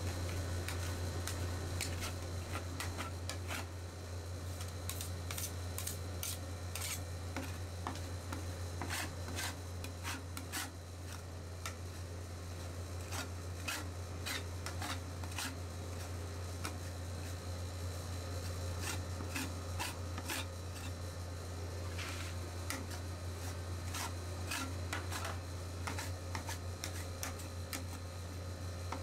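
A spatula scraping and smoothing a thin layer of frozen Oreo ice cream on a stainless-steel ice-roll cold plate, in irregular rasping strokes and clicks. A steady low hum runs underneath.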